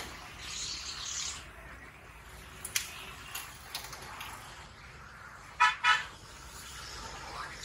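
A vehicle horn gives two short honks in quick succession about five and a half seconds in, over steady street background noise. A few light clicks come a couple of seconds before the honks.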